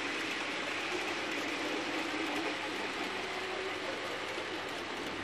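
Model railway freight train running along the track: a steady clatter of small wagon wheels on the rails with the locomotive's motor running underneath.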